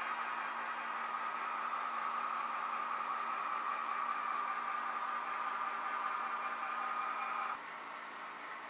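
Model freight train running on layout track: a steady whir and hiss from the rolling wheels and the locomotive's motor, with a faint steady hum. About seven and a half seconds in, the sound drops suddenly to a quieter level.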